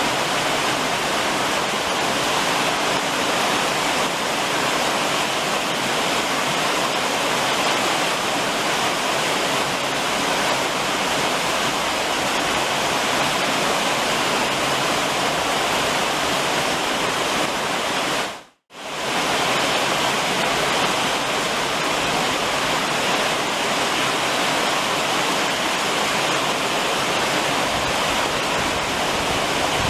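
Steady summer rain drumming on a roof. It cuts out for a moment about two-thirds of the way through, then carries on as before.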